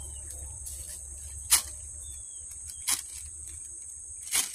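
Steady high-pitched insect drone, with four short sharp knocks spaced about a second and a half apart; the second knock is the loudest.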